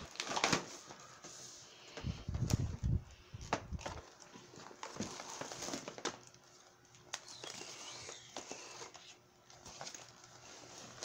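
Plastic blister-packed toys and a vinyl pouch handled on a wooden table: irregular taps, knocks and crinkles, with a few heavier bumps about two seconds in.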